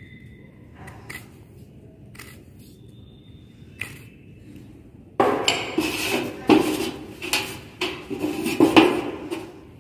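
A few light clicks and two short metallic pings from a steel try square being set on a wooden block. About five seconds in, a run of loud, scratchy, uneven strokes follows as a pencil is rubbed back and forth along the square, marking a cutting line on the wood.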